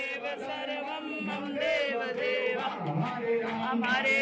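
A group of family voices singing a Hindu aarti hymn together in a chant-like melody, with hand clapping along.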